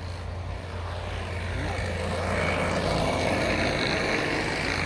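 Sidewalk snow plow's engine running as it approaches, growing steadily louder.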